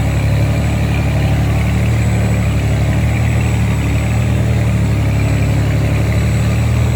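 Boat engine running steadily at constant speed, a deep, even hum with no change in pitch or loudness.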